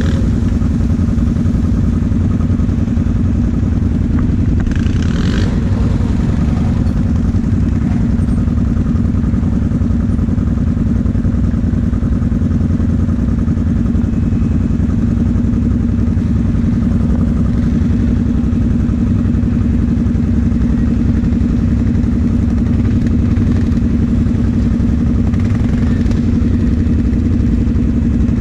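ATV engine running steadily at low, even speed, a constant drone that hardly changes pitch.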